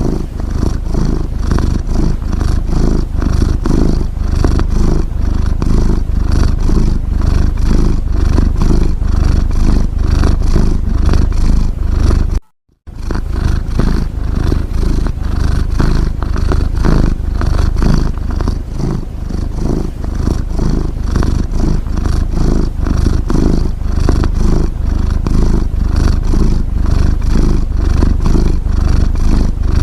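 A domestic cat purring close up: a steady, loud, rapid low rumble. It cuts out for a split second about twelve seconds in, then carries on.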